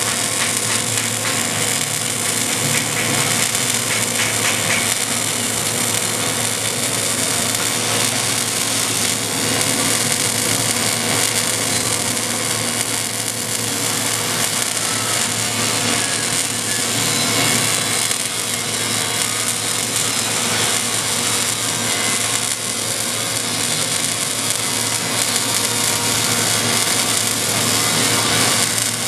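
Arc welding: the electrode's arc crackling and hissing steadily without a break.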